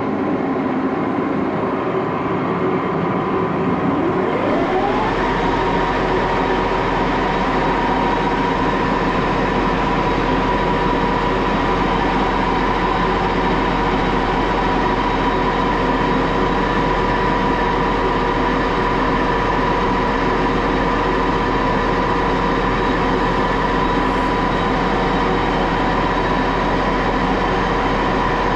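Antique Axelson lathe starting up: a whine rises in pitch about four seconds in as the spindle comes up to speed, around 850 rpm, then settles into a steady, loud running whine over a deep hum.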